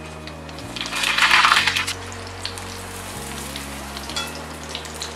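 Chip-crumbed chicken pieces deep-frying in hot oil in a cast-iron pan: a steady sizzle of bubbling oil. About a second in it swells into a loud surge of sizzling that lasts about a second.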